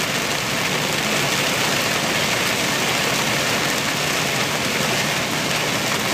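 Heavy wind-driven rain pelting a moving car, mixed with tyre noise on the flooded highway, heard from inside the cabin as a steady, even rush.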